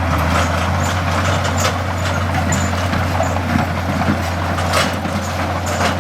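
Heavy construction machinery engine running steadily under load, with scattered clanks and rattles.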